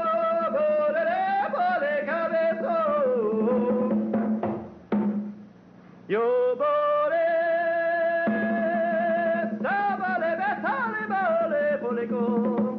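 A man singing a mock-folk song without recognisable words: long held high notes that break into wavering, warbling runs, over a steady low drone. He pauses briefly about five seconds in and comes back with a rising swoop into a new held note, with a few conga hits around the pauses.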